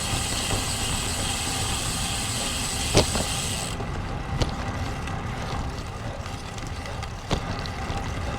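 Wind rumble and tyre noise from a road bike being ridden in strong wind, as heard on the bike-mounted camera's microphone. There are a few sharp knocks, the loudest about three seconds in and another near the end. The hiss thins out a little before halfway.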